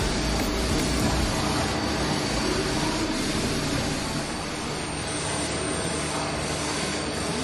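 Mori Seiki NLX2500SY CNC lathe running: a steady mechanical noise with a faint high whine, and a low rumble that drops away about a second in.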